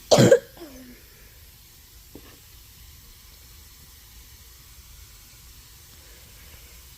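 A short, loud burst of rushing air as the tire bead, sealed with mounting compound, lets go while the tire is being aired up, followed by a faint steady hiss of air.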